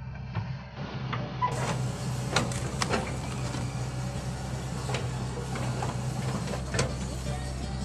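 Excavator diesel engine running steadily, with several sharp knocks over it, the strongest about two and a half, three and seven seconds in.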